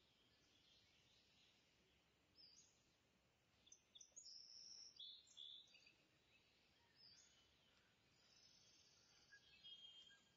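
Faint bird chirps over near-silent room tone. Short high chirps come in scattered bunches and are loudest a little past the middle.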